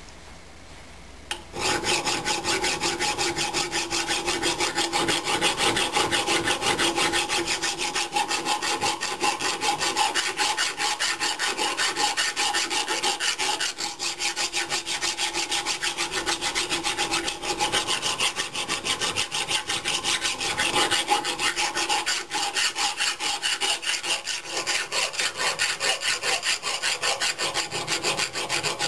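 Hand file rasping back and forth over the rusty, pitted steel of an old Gilpin Chip Chop axe head clamped in a bench vise, dressing down rust, pit marks and rolled-over burred edges. The strokes start about a second and a half in and then run on rapidly and evenly, with a steady tone beneath the scraping.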